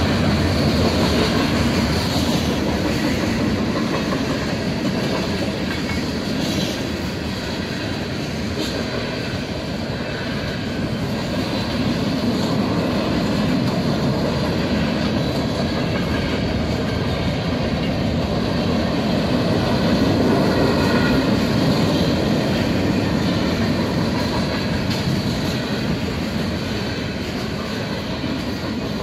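Freight cars of a long train rolling past at close range: a steady rumble of steel wheels on the rails, with clacking as the wheels cross rail joints.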